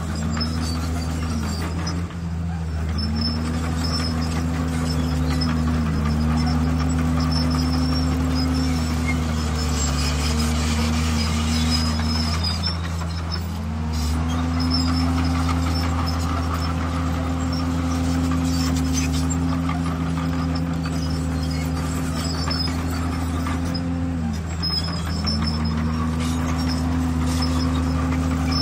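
D51PX bulldozer's diesel engine running hard, its note sagging and recovering every few seconds as the blade takes and sheds load pushing stone, with a deeper dip about halfway through. Faint metallic clinks come now and then.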